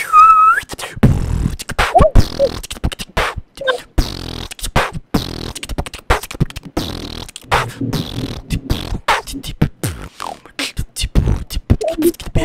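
Human beatboxing into a microphone: a fast, dense rhythm of vocal kick drums, snares and hi-hat hisses, opening with a short rising pitched note.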